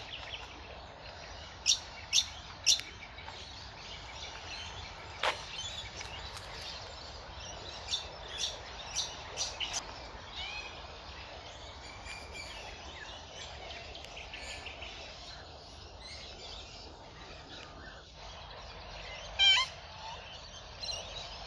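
Several birds chirping and calling over a steady outdoor hiss. A few sharp, short notes come in the first half, and one louder call comes near the end.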